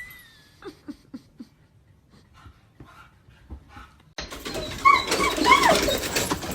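Dog whimpering: a few short, faint whines, then, after a sudden jump in loudness about four seconds in, louder whining cries that rise and fall in pitch.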